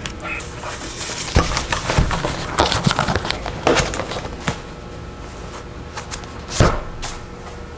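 Irregular clicks and clacks of a Goojodoq mechanical keyboard's keys, most of them in the first half, with one louder knock about six and a half seconds in.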